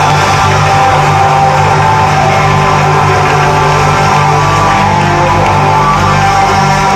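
Rock band playing live: electric guitars, bass guitar and drums, a loud, steady full-band passage heard from within the audience.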